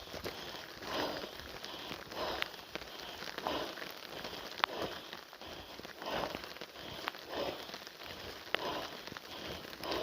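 Rain pattering around a walker on a wet trail, with a regular rhythm of steps about a second apart and a few sharp ticks of drops striking close by.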